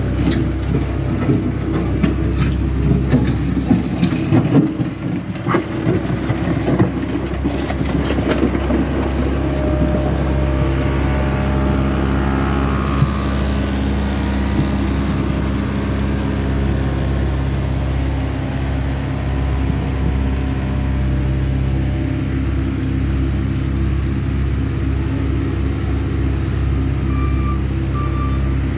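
CASE skid steer loader's diesel engine running steadily under work, with a string of knocks and scrapes during the first eight seconds or so.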